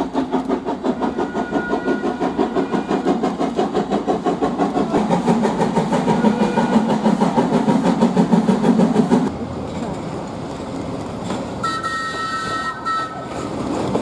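Steam locomotive working a train, its exhaust chuffing in a steady rhythm that grows louder as it approaches. About nine seconds in, this cuts off abruptly to a quieter rumble of rolling stock. Near the end a train whistle sounds, held for about two seconds.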